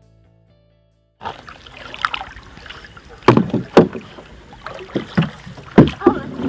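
Paddles splashing and knocking against a plywood canoe at the water's edge, several sharp loud knocks among the splashing, with children calling out briefly. It starts about a second in, after a moment of quiet.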